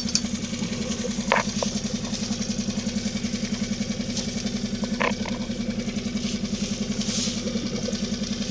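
Boat engine idling steadily with a rapid even pulse, with a couple of faint clicks.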